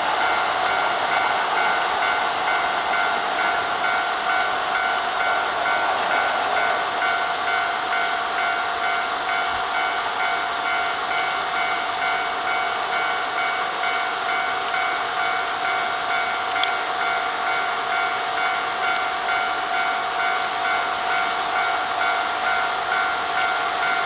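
Japanese level-crossing alarm ringing steadily, its electronic bell tones repeating evenly without a break. Over it comes the running noise of a Hankyu 7300 series train passing through at speed in the first seconds.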